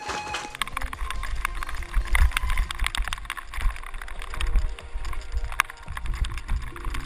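Mountain bike descending wet cobblestones, heard through a camera mounted on the bike: wind buffeting the microphone as a heavy low rumble, with the bike rattling and clattering over the stones. It starts about half a second in.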